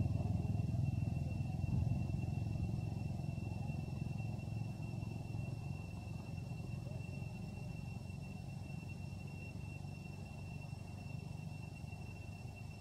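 A motor vehicle's engine running and slowly fading away as it moves off, over a steady high-pitched whine.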